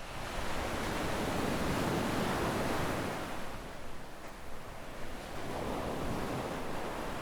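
Small sea waves washing up onto a sandy beach: one swell of surf over the first three seconds, easing off, then a second, smaller wash near the end.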